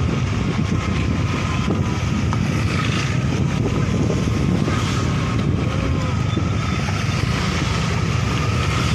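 Strong wind rushing and buffeting the microphone: a steady, loud rumbling noise, heaviest in the low end.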